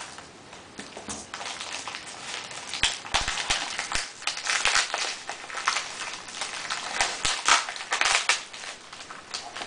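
Tape and foam wrapping being cut with scissors and pulled and peeled off a parcel by hand: a busy run of crackles, crinkles and small snaps, loudest in the middle.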